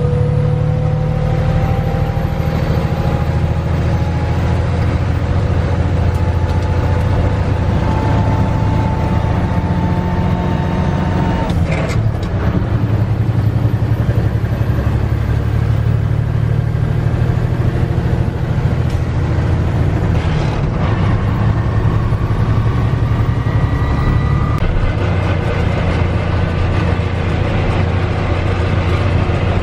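1982 Mack R-Series truck's diesel engine pulling, heard from inside the cab. It runs as a steady low drone whose pitch climbs over the first dozen seconds, then breaks off briefly about twelve seconds in for a gear change on the 10-speed crash box, and climbs again later.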